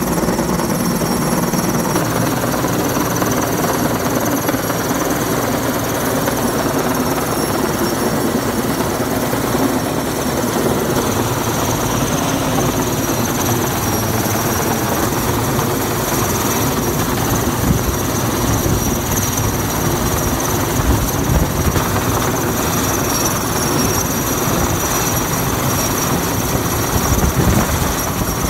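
Heavy-lift crane helicopter hovering close overhead under a slung load, its rotor and engines running steadily and loud, with a steady high whine over the rotor noise.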